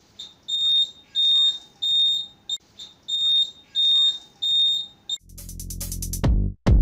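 Motorcycle turn-indicator beeper sounding a high electronic beep over and over, about one and a half times a second, in time with the flashing indicators. About five seconds in, the beeping gives way to a rising swell of electronic music with heavy beats.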